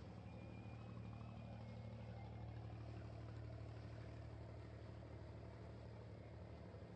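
Abra water taxi's diesel engine running with a steady low hum, swelling slightly a couple of seconds in.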